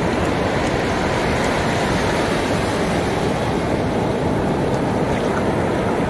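Shallow sea surf washing up over the sand: a steady, even rush of water.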